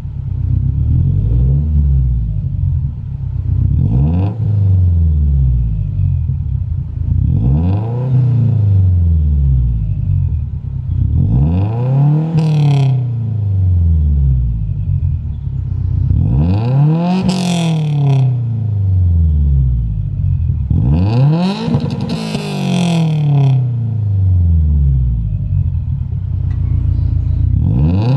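A car engine idling and being blipped over and over, about seven revs that rise and fall in pitch, the later ones taken higher and held longer.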